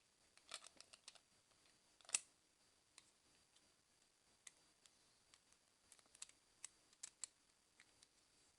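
Faint, scattered clicks of a Beyblade spinning top's plastic parts being handled and fitted together, with one sharper click about two seconds in.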